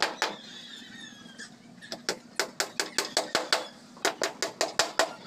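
Hammer tapping nails into a thin wooden board: two strikes, a pause of over a second, then steady runs of quick sharp strikes about five a second.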